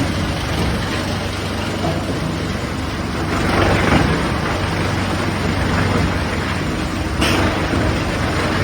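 Wood chipper running and shredding wood: a steady machine drone under a dense grinding rush that swells about three and a half seconds in, with a sharp knock a little past seven seconds.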